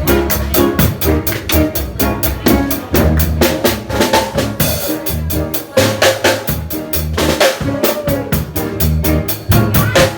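A live band playing: drum kit keeping a busy steady beat with snare and bass drum, over bass and keyboard lines.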